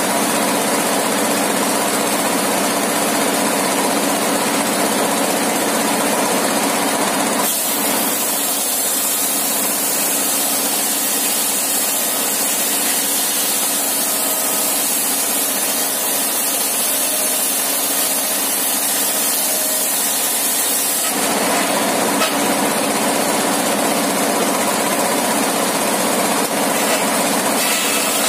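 Engine-driven circular sawmill running steadily, its engine droning throughout. From about 7 seconds in until about 21 seconds in the blade rips lengthwise through a long wooden plank, and the sound turns higher and hissier.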